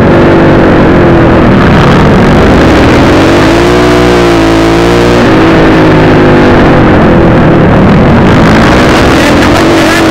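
Dirt bike engine running hard on a motocross track, loud from a camera mounted on the bike. Its pitch dips and climbs back up about four seconds in, as the throttle is eased and opened again.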